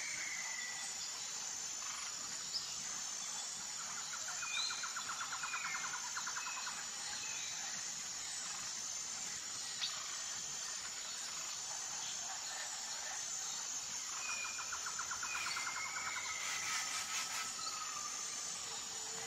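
Outdoor insect and bird ambience: a steady high-pitched insect drone, with scattered short bird whistles and a rapid trill about four seconds in and again around fifteen seconds in.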